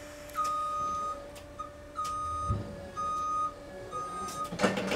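Forklift backup alarm beeping about once a second over a steady hum, with a clatter near the end.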